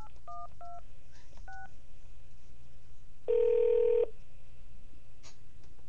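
Touch-tone telephone dialing: four short two-note keypad beeps in the first second and a half, then a single ringing tone on the line a little over three seconds in, lasting under a second, as the call goes through.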